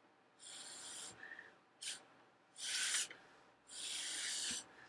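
Short puffs of breath blown through a drinking straw cut in half, pushing wet watercolor paint across paper: about four faint, breathy hisses, the last nearly a second long.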